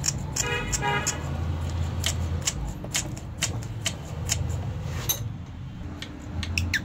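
Irregular light clicks and taps of metal and plastic as a brake master cylinder with a plastic fluid reservoir is handled in a bench vise, over a steady low hum. A short pitched toot sounds about half a second in.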